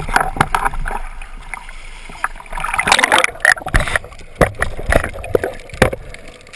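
Water sloshing and splashing at the surface, then going under about three seconds in: muffled underwater bubbling with many sharp knocks.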